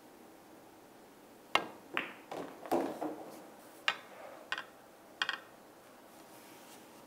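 A pool shot: the cue tip strikes the cue ball with a sharp click about a second and a half in, followed by balls clacking together and knocking off the cushions and pocket point. Several more ball clicks follow over the next few seconds, some of them doubled.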